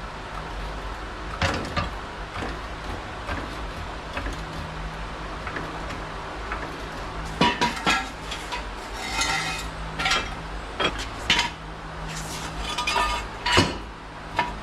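Metal hand tools and parts clinking and knocking during wrench work: scattered sharp clinks, several ringing briefly, with the loudest clusters in the second half.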